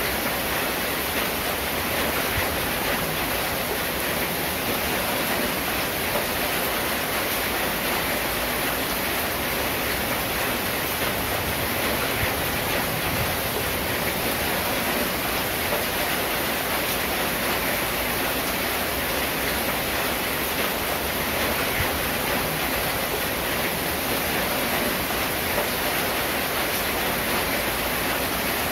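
Rain falling steadily on a corrugated zinc roof: an even, unbroken hiss with no thunder.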